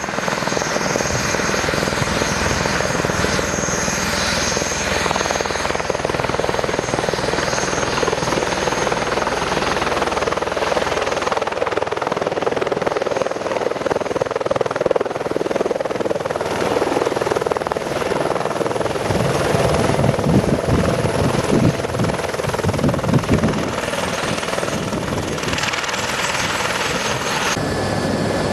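Helicopter's turbine and rotor running as it lifts off a helipad and climbs away, a steady whine with the rotor's beat coming through more strongly in the second half. Near the end the sound changes abruptly to the steadier drone heard inside the helicopter's cabin.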